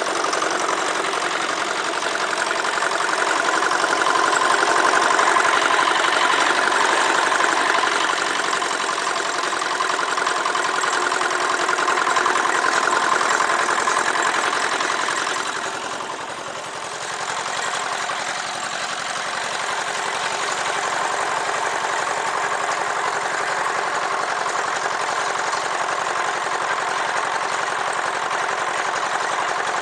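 Small portable concrete mixer running, its single-cylinder engine chugging steadily as it turns the drum. The sound dips briefly a little past the middle, then carries on steadily.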